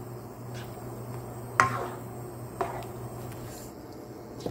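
A plastic ladle stirring curry in a wok, knocking sharply against the pan about a second and a half in and more lightly a second later, with another small knock near the end. A steady low hum runs underneath.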